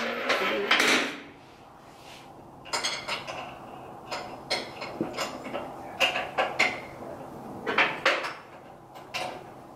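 Irregular metallic clanks and clinks, a dozen or so knocks in small clusters, as metal parts and tools are handled and set down during tool box fabrication.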